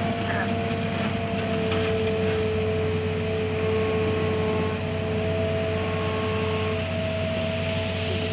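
Hitachi EX200-2 hydraulic excavator running steadily as it works its boom and bucket, a low diesel hum with a steady whine over it.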